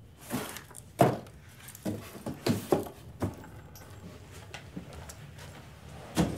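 Handling noises from a cardboard box being carried and set down: a string of knocks, thuds and rustles, with the sharpest thumps about a second in and just before the end.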